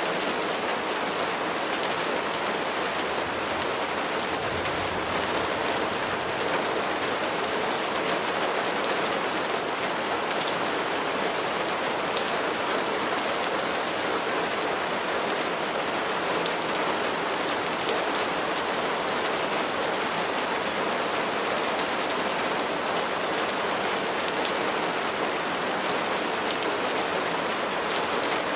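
Rain falling steadily: an even hiss with a fine patter of drops and no change in strength.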